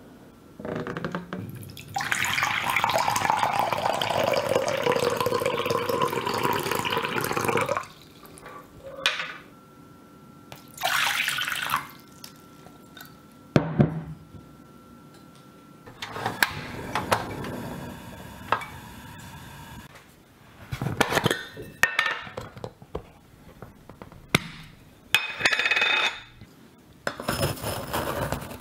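Water filling a vessel for about six seconds, then scattered clinks and knocks of kitchenware with one sharp knock partway through. Near the end there is a rustle as a metal scoop digs into a tin of loose black tea leaves.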